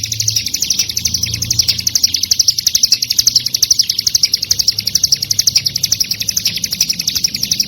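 Ciblek gunung singing a rapid, unbroken run of high chirps, about ten a second, as recorded bird-call training audio (masteran) for songbirds.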